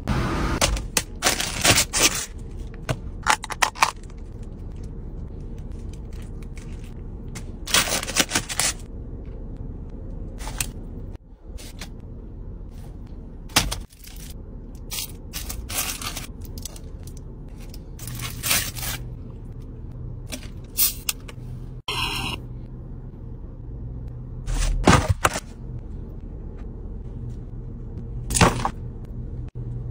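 Takeaway food packaging being handled: aluminium foil crinkling and plastic and foam containers scraping and crackling in a string of short bursts, over a low steady hum.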